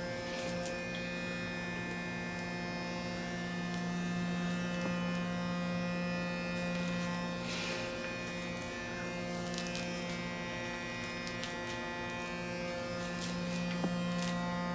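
Electric facial cleansing brush buzzing steadily, its rotating brush head pressed against a lathered face, with faint scrubbing on the skin.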